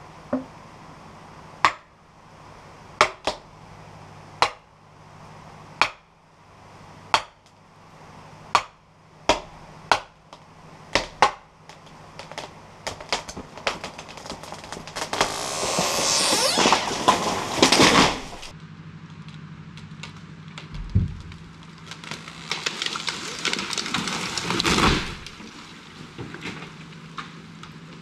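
About a dozen sharp hammer blows on a plastic felling wedge in a tree's back cut, coming faster, then cracking that builds as the hinge gives way and the tree crashes down through branches. A heavy thud comes as the trunk lands, followed by a second rush of breaking brush.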